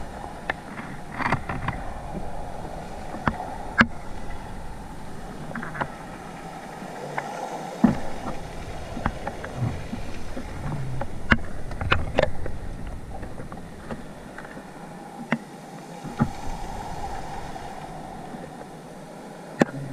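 Underwater sound as picked up by a diver's camera: a steady muffled hiss and rumble, with scattered sharp clicks and knocks every second or so.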